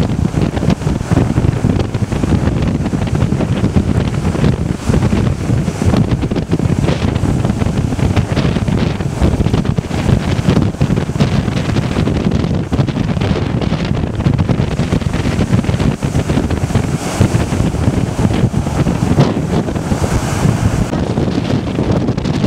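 Strong hurricane-driven wind buffeting the microphone in a loud, constant low buffeting, over the wash of heavy storm surf breaking on the beach.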